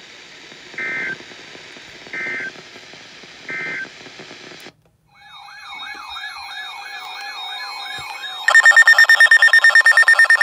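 Three short EAS digital data bursts, the end-of-message tones of a broadcast warning, over a steady hiss. After a brief cut, an alert receiver's warbling tone sweeps up and down several times a second, and about 8.5 s in a much louder, rapidly pulsing alert beep joins it as a new warning comes in.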